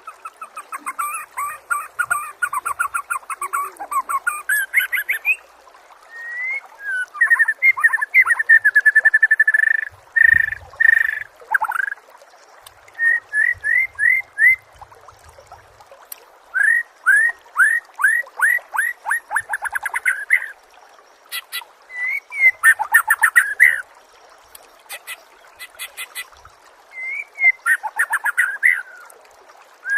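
Songbird singing in loud phrases of rapid, downward-slurring whistled notes and trills, each phrase a few seconds long with short pauses between, mixed with thin, very high chips.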